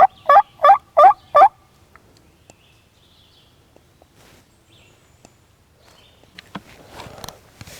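Wild turkey gobbler gobbling close by: one loud, rapid rattling string of about five notes lasting about a second and a half, at the start. A few faint clicks follow near the end.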